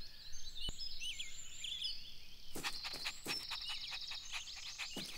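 Garden birdsong ambience: small birds chirping and twittering in quick rising and falling calls, with a few faint clicks in the second half.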